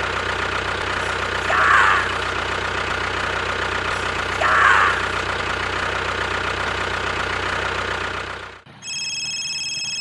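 A steady engine running, with two short falling squeals over it. Near the end it cuts off suddenly to a steady high electronic tone.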